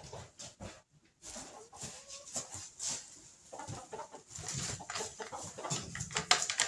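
Chickens clucking, mixed with scattered rustling and knocking sounds from handling and movement in the straw of the coop.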